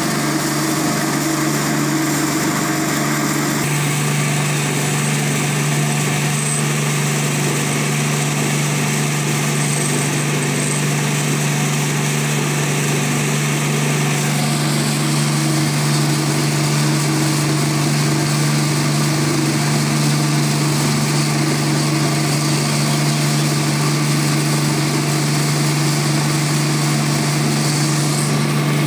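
Ostad Gold rice huller, driven by an electric motor, running steadily while dehusking paddy fed from its hopper: a constant mechanical hum over a continuous hiss.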